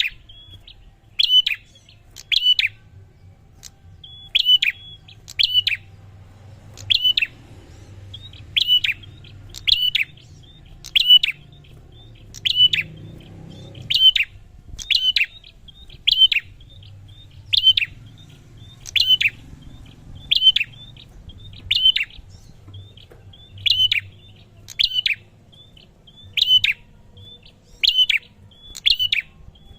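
A prinia calling over and over: short, sharp chirps with a quick hooked pitch, repeated steadily about once every second or so.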